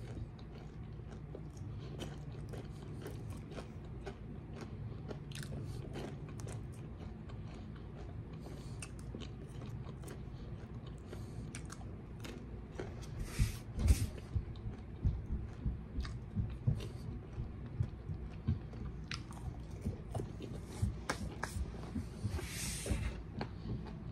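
Close-up chewing and crunching of Fruity Pebbles-coated cereal popcorn, with small crisp crackles. From about halfway through it turns into steady, louder chewing at about two bites a second, with a couple of brief hissy rustles.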